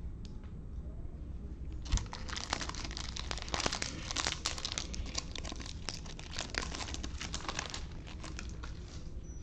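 Foil wrapper of a trading-card pack crinkling as it is torn open and peeled off the cards, with a short knock about two seconds in.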